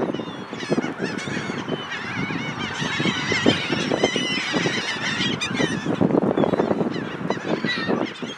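A flock of seagulls in a feeding frenzy, many calling at once in overlapping, wavering cries that are thickest around the middle.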